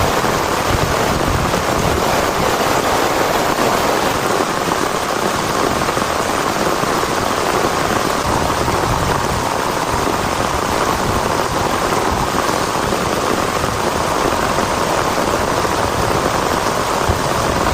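Heavy rain falling steadily, a loud, unbroken hiss.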